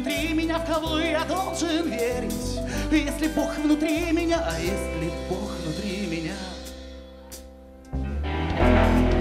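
Live band: a man sings with vibrato over sustained electric upright bass notes and keyboard. The music thins to a quiet lull around seven seconds in, then the full band comes in loudly about eight seconds in.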